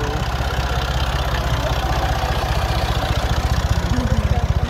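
Massey Ferguson 240 tractor's three-cylinder diesel engine idling close by, a steady, evenly pulsing low rumble.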